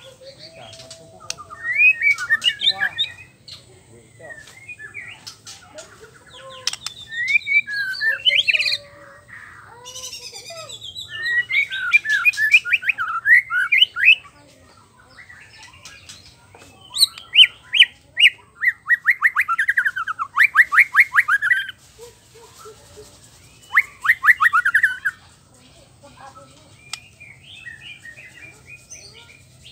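Male white-rumped shama singing loudly in about half a dozen bursts of varied phrases, including fast even trills, with short pauses between them.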